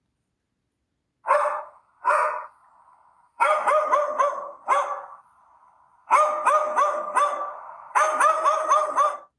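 Dog barking: two single barks, then several bursts of quick barks in a row, played as a recorded animal sound.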